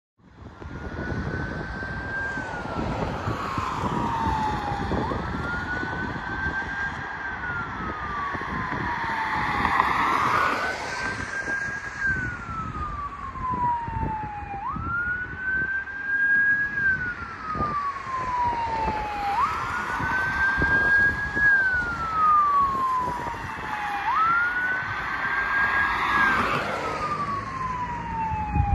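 Fire engine siren wailing as the engine runs to an emergency call: each cycle a quick rise in pitch, then a slow fall, repeating about every five seconds and growing a little louder, over the hiss of road traffic.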